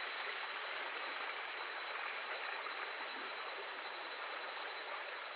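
Steady high-pitched chorus of insects in tropical forest, an even dense hiss with a thin steady tone running through it.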